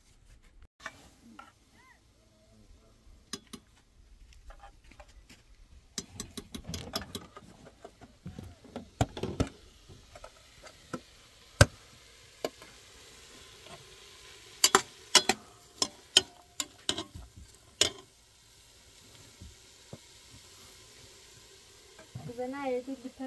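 Chopped vegetables frying in an aluminium pot on a small gas burner, with a faint sizzle, while a metal spoon and ladle clink and scrape against the pot as they are stirred. The clinks come in bunches, sharpest and most frequent in the middle of the stretch.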